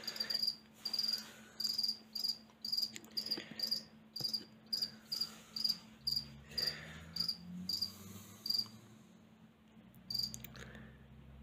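A cricket chirping: short, high chirps repeated about two to three times a second, breaking off near the end with one last chirp.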